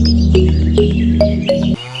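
Background music with a steady beat that cuts off near the end, as a cow starts to moo.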